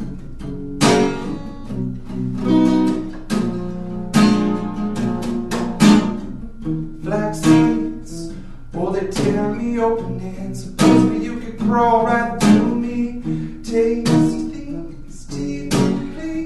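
Acoustic guitar strummed in an instrumental passage of a song, with accented chord strums about once a second and the strings ringing between them.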